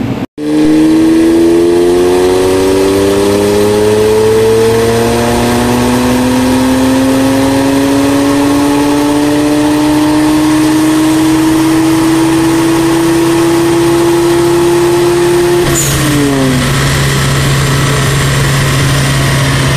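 Car engine under full throttle on a chassis dyno, its note climbing steadily in pitch through a long pull of about fifteen seconds. About four seconds before the end the pitch drops away quickly and settles into a steady lower drone.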